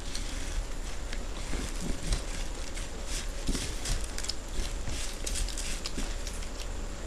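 Dry puffed rice (muri) crackling and rustling as hands scoop and mix it with ghugni on the plates, together with crunchy chewing of mouthfuls; a dense run of irregular small crisp clicks.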